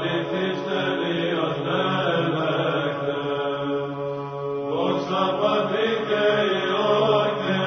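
Men's voices chanting an Orthodox liturgical hymn, with a steady low drone held beneath a slow melodic line; a new phrase begins a little after halfway through.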